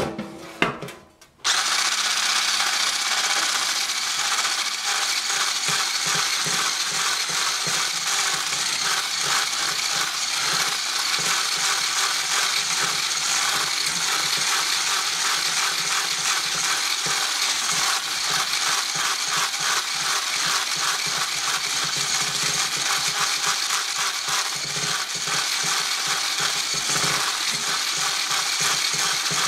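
Electric blender running loud and steady, mixing banana cake batter; it switches on about a second and a half in.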